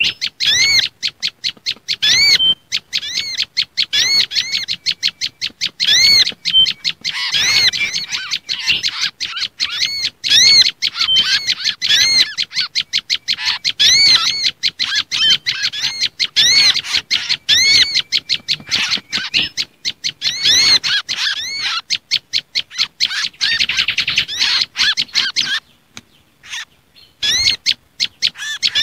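Bird-lure recording of small songbirds in an agitated, alarm-like chorus: prenjak lumut calls mixed with mangrove whistler (kancilan bakau) and olive-backed sunbird (sogok ontong) calls. Rapid, high arching chirps repeat several times a second almost without a break, with a short pause near the end.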